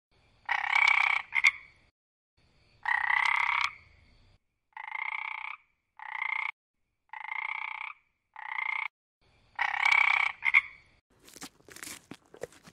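An animal calling over and over: about nine short, even-pitched calls, each under a second, at uneven gaps. Near the end come a run of crackling clicks.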